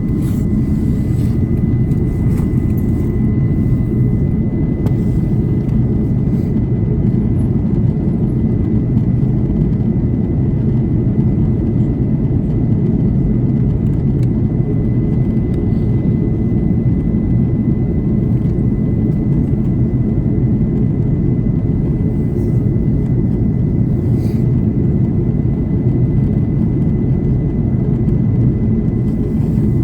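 Steady cabin noise inside an Airbus A330 airliner descending in flight: a deep, even rumble of engines and rushing air, with a faint steady whine high above it.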